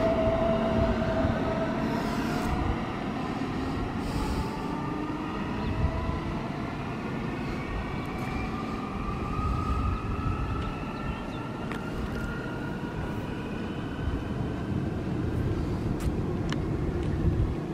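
Munich S-Bahn class 423 electric multiple unit accelerating away from a station stop. Its traction drive gives several whines that climb steadily in pitch, over a low rolling rumble that drops in the first few seconds as the train draws off.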